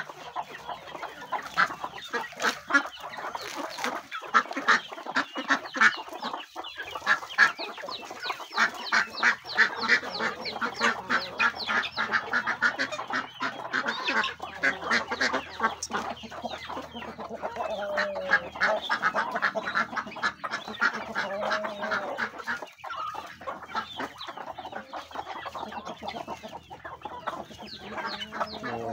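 A mixed backyard flock of chickens and ducks feeding, with a dense, steady chatter of clucking. A few higher sliding calls come through about two-thirds of the way in.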